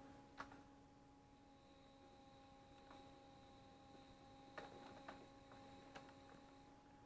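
Near silence: a faint steady hum from a running electric pottery wheel, with a few faint clicks during trimming.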